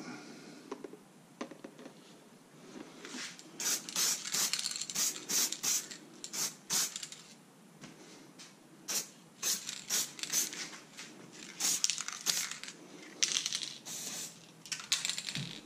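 Aerosol can of satin black spray paint hissing in a long series of short bursts, starting about three seconds in.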